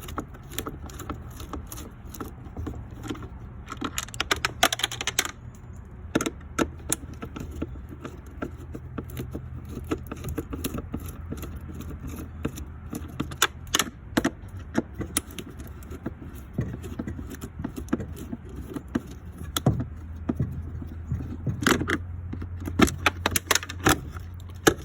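Hand work on a car door panel: a long run of irregular sharp clicks, clinks and rattles from a screwdriver, screws and loose metal and plastic parts, with a steady low hum underneath.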